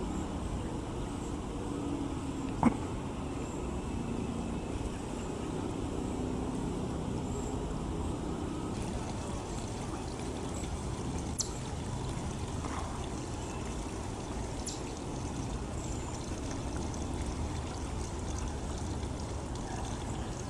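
Shallow water trickling steadily over a rock outcrop. A sharp click comes a few seconds in, with fainter ones later.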